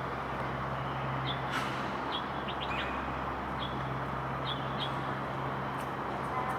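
Short, high bird chirps repeating every second or so over a steady low hum and constant outdoor background noise.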